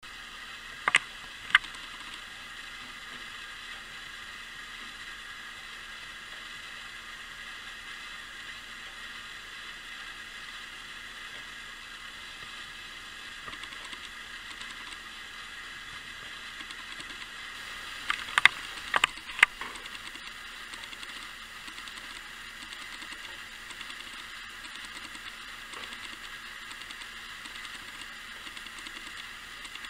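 Antique spring-wound clockwork rotisserie (tourne-broche) running: a steady whirr from its gear train as the spit and grill basket turn. Two sharp clicks come about a second in, and a short cluster of louder clicks a little past the middle.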